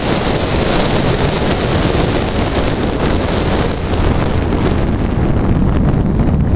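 Heavy wind rush on the microphone of a camera mounted outside a moving BMW drift car, with the car's engine running steadily underneath.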